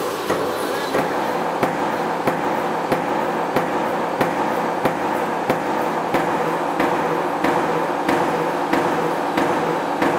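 Mechanical C-frame power press stamping razor blade tape from steel strip: a sharp, regular clank about three times every two seconds over the steady hum of the running machine.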